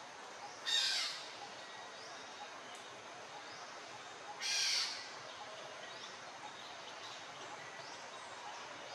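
Two short, harsh animal calls about four seconds apart, each lasting about half a second, over a steady outdoor background hum.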